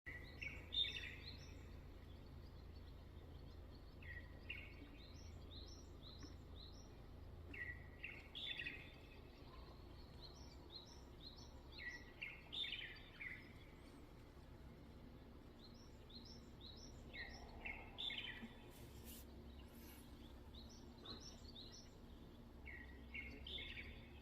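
A bird singing at dawn: a short phrase of quick, rising chirps repeated about every four seconds, with scattered high notes in between, heard faintly over a steady low background rumble.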